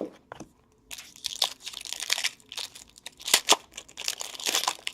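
A trading-card pack wrapper crinkling and tearing as it is opened by hand, with many sharp crackles and snaps starting about a second in.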